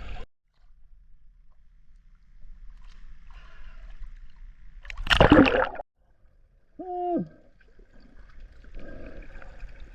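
Muffled underwater sound while snorkelling: a rush of water about halfway through, then one short, low, hoot-like vocal sound with a falling end.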